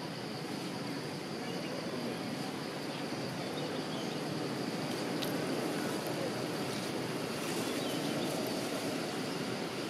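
Steady outdoor background noise: a low, even rumble like distant traffic, with a faint high, steady insect drone over it.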